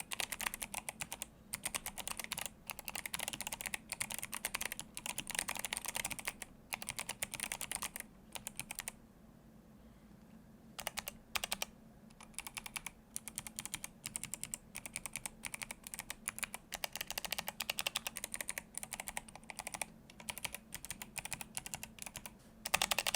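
Typing on an Atreus62 mechanical keyboard with Kailh Box Jade clicky switches and blank PBT keycaps: fast runs of sharp clicks, pausing for about a second and a half roughly nine seconds in, with a louder flurry near the end.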